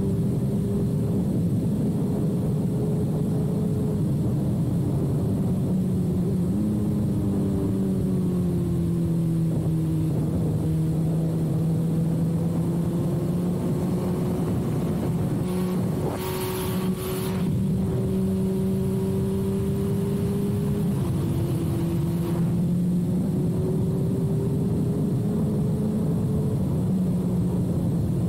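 2006 Suzuki GSX-R1000's 999 cc inline-four running through a full carbon/titanium Yoshimura exhaust, heard from the rider's seat at a steady cruise. The engine note eases down and climbs back several times with the throttle, under steady wind and road noise, with a brief hiss a little past halfway.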